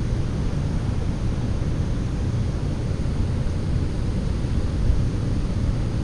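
Steady low rumble with an even hiss above it: wind buffeting the microphone over the rush of river water.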